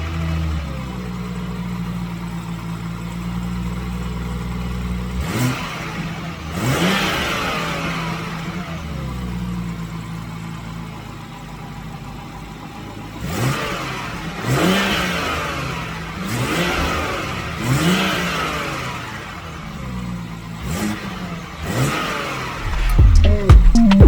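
BMW M140i's turbocharged 3.0-litre straight-six idling, then blipped several times in quick revs that climb sharply and fall back to idle, with a longer settled idle between the first rev and the later cluster. Run with the stock intake, before the MST intake is fitted.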